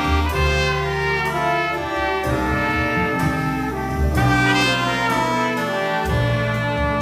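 Jazz nonet playing a composed piece: saxophones, bass clarinet, flugelhorn and trombone sound held ensemble chords that change every second or so over low tuba and double bass notes, with piano and sharp drum and cymbal strokes.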